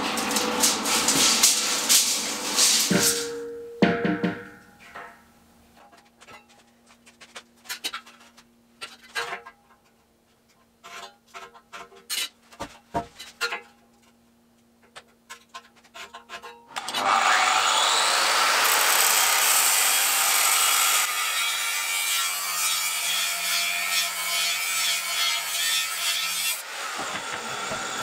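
Angle grinder with a cut-off disc spinning up and cutting through a rusty square steel tube for about ten seconds, starting suddenly after sparse light clicks and scratches of measuring and marking out.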